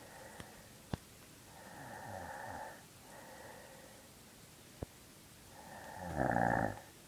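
A woman snoring in her sleep: a few snoring breaths, the loudest near the end. There are two short sharp clicks in between.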